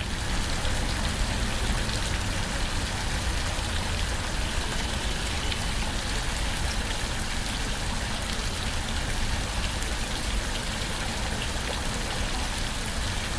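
Steady rain falling, an even dense hiss with scattered small drop ticks.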